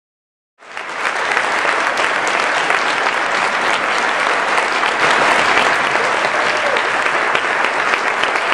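Large audience applauding steadily, cutting in abruptly about half a second in.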